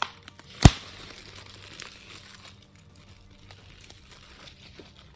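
Plastic shrink-wrap on a Blu-ray case crinkling as fingers pick and pull at it, with one sharp, loud snap less than a second in and scattered small crackles after.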